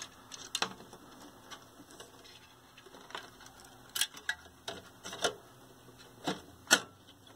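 Scattered sharp clicks and light knocks as a TV's IF circuit board and its cables are handled and fitted into the set's chassis. The loudest click comes near the end.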